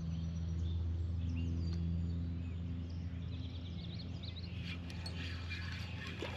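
Outdoor lake ambience: a steady low hum underneath, with birds chirping, a quick run of chirps about halfway through. Near the end a rustling, splashy noise builds.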